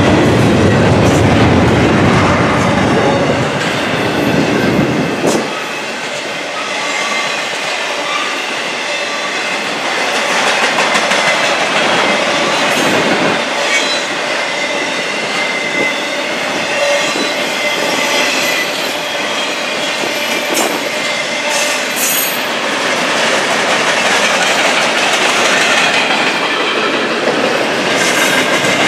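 Steel wheels of double-stack container cars and trailer-carrying flatcars on a freight train rolling past on the rail. A steady high wheel squeal rides over the rolling noise, with scattered clicks from the wheels over the rail. The low rumble is heaviest for the first five seconds, then thins.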